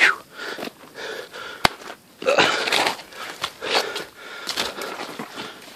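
Footsteps and rustling of brush and thorny branches scraping past the legs while walking a narrow trail, in irregular bursts, with one sharp click about one and a half seconds in.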